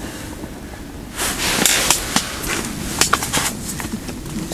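Rustling with a few light clicks and knocks from hands handling ice-fishing tackle.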